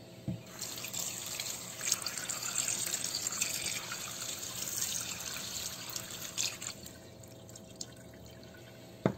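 Tap water running into a plastic tub in a sink as a soil sample is washed, for about six seconds, then stopping. A sharp knock near the end.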